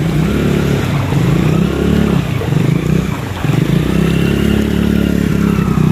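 Motorcycle engine riding through shallow floodwater, its pitch rising and falling several times as the rider works the throttle.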